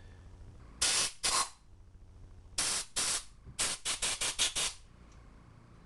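Compressed-air blow gun fired in short hissing blasts through Holley carburetor passages to clear them: two blasts, then two more, then a rapid string of about six short ones.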